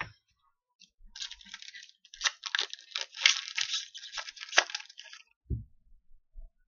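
Foil wrapper of a hockey card pack being torn open and crinkled: a run of crackling tears lasting about four seconds, followed by a thump.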